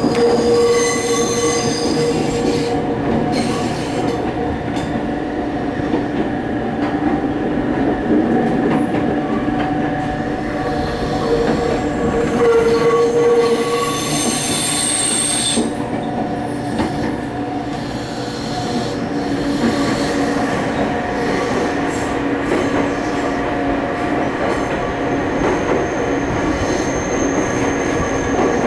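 Train running on the rails from inside the passenger car: a steady rumble with wheels squealing against the rails as high tones that swell and fade.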